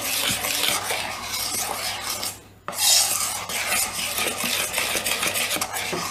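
A spoon scraping and stirring round a stainless steel bowl, mixing crushed Oreo biscuits, Eno and milk into a thick chocolate batter. There is a brief pause about two and a half seconds in.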